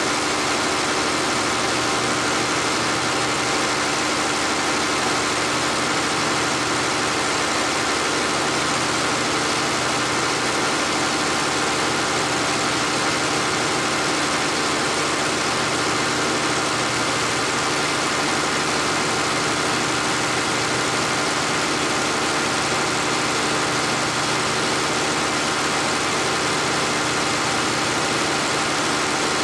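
Bacharach diesel injection pump test stand running at a steady speed, driving a VE rotary injection pump through a timed fuel-delivery run: an even machine drone with a constant hum and no change in speed.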